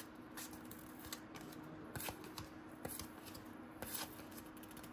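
Cardboard trading cards, 1991-92 NBA Hoops basketball cards, being handled and flipped one behind another: faint scattered clicks and soft slides of card stock against card stock, over a faint steady hum.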